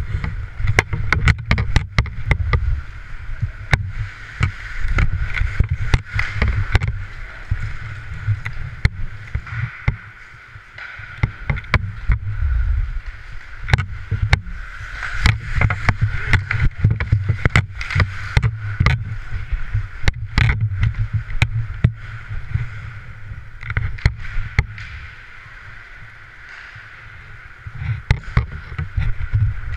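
Ice hockey play heard from a helmet-mounted camera: a constant low rumble of wind and motion on the microphone as the player skates, skate blades scraping the ice, and many sharp clacks of hockey sticks hitting the puck and the ice.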